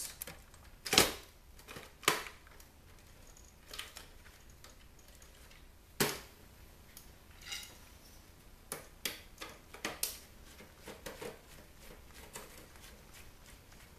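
Scattered sharp clicks and knocks of a screwdriver and the CD changer's plastic and metal parts being handled while screws are taken out, the loudest about 1, 2 and 6 seconds in.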